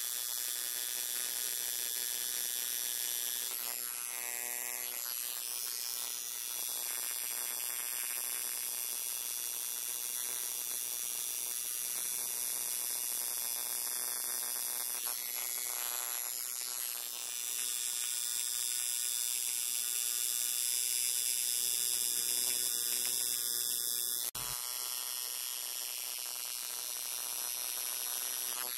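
Electric tattoo machine buzzing steadily as its needle inks a small outline into the skin of a wrist. There is one abrupt break in the buzz near the end.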